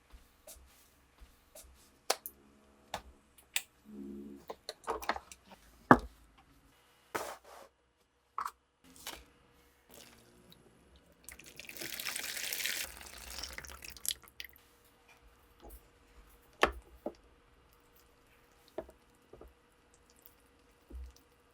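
Small metal parts of an old revolver being handled and worked: scattered clicks and taps, with a hiss lasting about two seconds around twelve seconds in.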